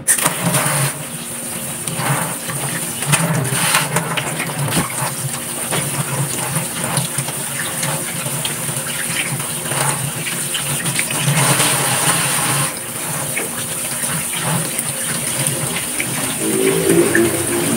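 Kitchen tap running steadily, the water pouring through a plastic strainer of ground pork and splashing into a stainless steel sink.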